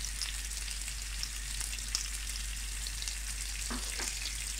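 Sliced potatoes, sucuk and peppers frying in a little oil in a pan: a steady sizzle with small crackles.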